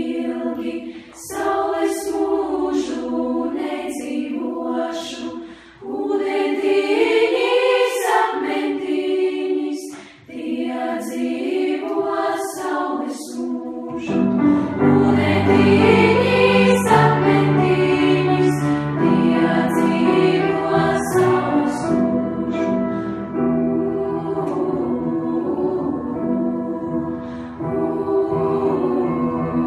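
School choir of girls singing together, with sustained, gliding vocal lines. About halfway through, a deeper part comes in beneath the voices and carries on.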